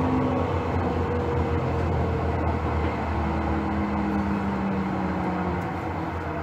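Cab noise of a 1977 Düwag B100S light-rail car: its 750 V DC traction motors and running gear give a steady low hum, with a few held whining tones that come and go. It gets gradually quieter toward the end.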